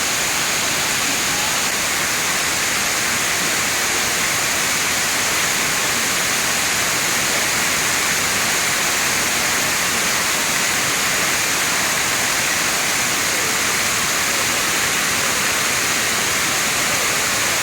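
Waterfall: falling water rushing steadily as an even, unbroken hiss.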